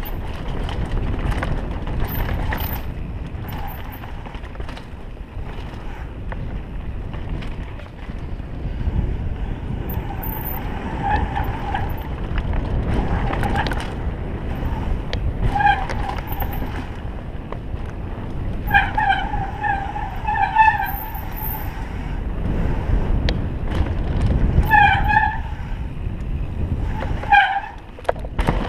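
Downhill mountain bike ridden fast on a dirt forest trail: a steady rush of wind on the helmet microphone with the rumble and rattle of the tyres and bike over the ground. From about ten seconds in, short high squeals come in clusters as the brakes are applied.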